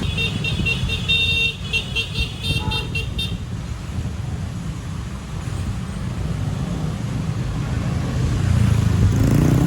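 Bus telolet horn playing a quick run of high notes for about three seconds, then the low rumble of the bus engine and road traffic, growing louder near the end.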